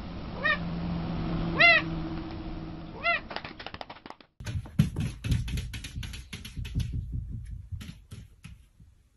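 A calico cat gives three short meows that rise and fall in pitch, about half a second, a second and a half and three seconds in. Then comes a rapid run of taps and knocks as a long-haired tabby paws at a mirror.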